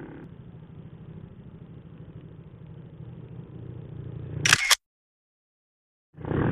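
Faint low engine rumble from a ride, then about four and a half seconds in a sharp double click like a camera shutter, after which the sound cuts out to dead silence.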